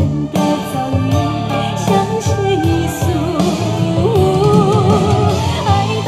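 Recorded song with a female singer, played through Klipsch R-41M bookshelf speakers driven by an AuricSound A7EX amplifier, picked up by a microphone in the room.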